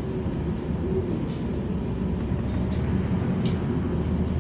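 Cabin noise aboard a New Flyer Xcelsior XN40 natural-gas city bus: a steady low engine-and-road rumble, with a brief rattle about a second and a half in and another past three seconds.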